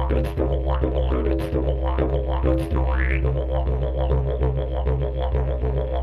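Didgeridoo played continuously: a steady low drone with shifting vowel-like overtones and rhythmic accents, the drone dipping briefly a few times.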